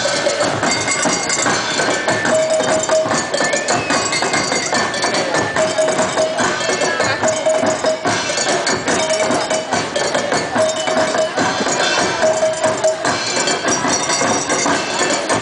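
Live drum-and-percussion dance music: drums with clattering, clanking percussion in a dense, steady beat, and a short high note that comes back every second or two. Crowd voices sit underneath.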